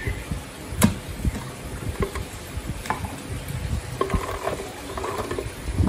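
Pomegranate arils poured from a plate into a plastic blender jar, pattering and clicking against the plastic, with a sharp knock about a second in and a few more knocks later.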